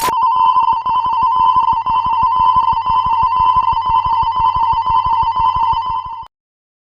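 Animated level-crossing alarm ringing: a rapid, fast-pulsing electronic ring over a warbling high tone, like a telephone bell. It cuts off suddenly about six seconds in.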